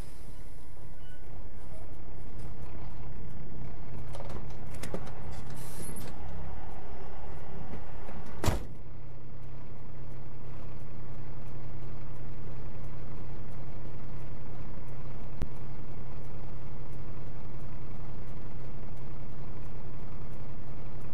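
Engine and road noise inside a truck cab, a steady low rumble, with a sharp click about eight and a half seconds in.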